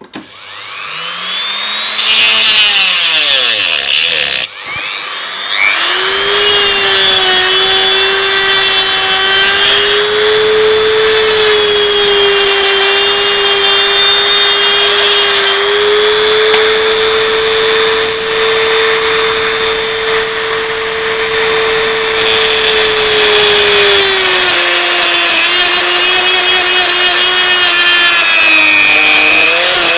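Dremel rotary tool spinning up, cutting out briefly about four seconds in, then running steadily at high speed as it cuts into a plastic earbud shell, its pitch shifting slightly as it bites, before winding down at the very end.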